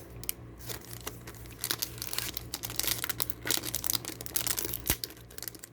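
Foil wrapper of a Pokémon card booster pack crinkling and crackling in irregular bursts as it is handled and opened, with one sharper snap about five seconds in. A steady low hum runs underneath.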